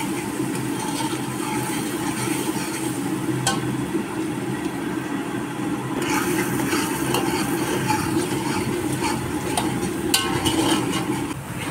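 Steel ladle and hand stirring and scraping a dry, crumbly mixture in a large aluminium pot, with a few sharp clinks of the ladle against the metal, the loudest about ten seconds in, over a steady low hum.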